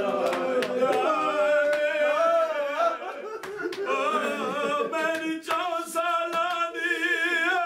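A man chanting elegiac verses about Karbala in Punjabi, unaccompanied, in long, wavering, drawn-out notes that slide between pitches.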